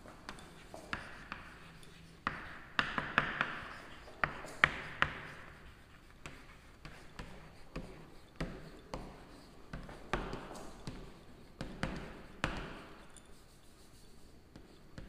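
Chalk writing on a chalkboard: sharp taps as the chalk strikes the board, with scratchy strokes between them, coming in bursts with short pauses.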